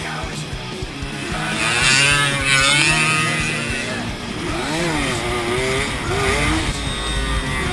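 Off-road motorcycle engine revving, its pitch rising and falling repeatedly as the throttle is worked.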